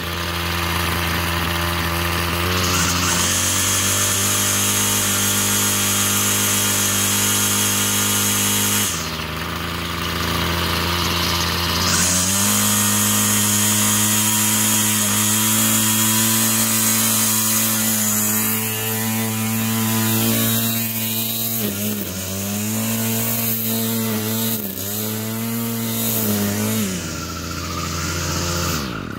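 Gas string trimmer engine running, first at a lower steady speed, then held at a higher steady speed from partway through, with a few brief dips in speed near the end before it cuts off suddenly.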